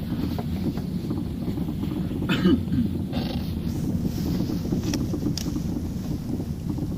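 Steady low rumble of a vehicle under way, mixed with wind buffeting the microphone, with a brief higher sound about two and a half seconds in.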